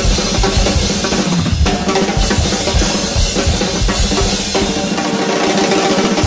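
Drum kit played fast and busy: rapid bass drum and snare strokes with cymbals, over music with bass and other pitched instruments. The playing stops at the very end and the sound fades.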